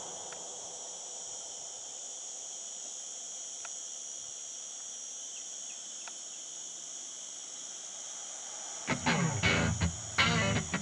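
Faint, steady, high-pitched insect drone over a low hiss. Background music with guitar and a beat comes in near the end.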